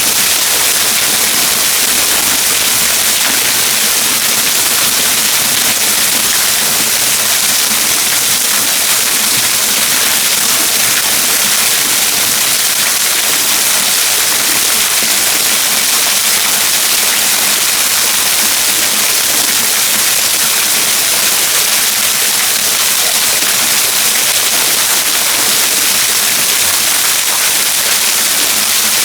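Waterfall: falling water rushing in a loud, steady, unbroken hiss.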